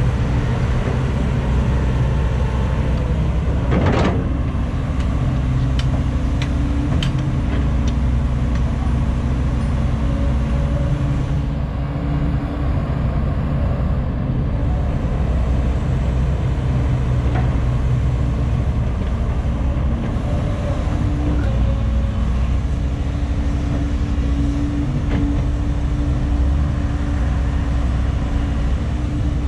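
Diesel engine of a Volvo crawler excavator running under load as it digs and swings soil, with a sharp clank about four seconds in and a few lighter knocks shortly after.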